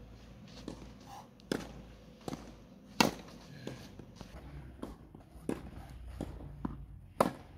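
Tennis being played on a clay court: a series of sharp knocks from the racket striking the ball and the ball bouncing, the loudest about three seconds in, with footsteps on the clay in between.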